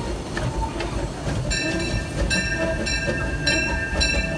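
Disneyland Railroad steam train running along the track with a steady rumble and clatter. From about a second and a half in, the steel wheels squeal in short, uneven bursts as the train rounds a curve.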